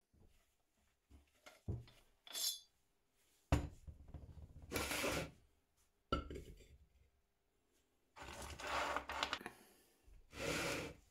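Steel workpieces being handled and worked: sharp metal knocks and clinks, and several scraping strokes about a second long each.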